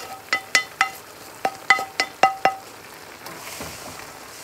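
A small metal frying pan knocked about eight times against the rim of a wok, ringing clinks as the fried onion and garlic tempering is emptied out. From about three seconds in, a wooden spatula stirs the vegetables with a soft sizzle.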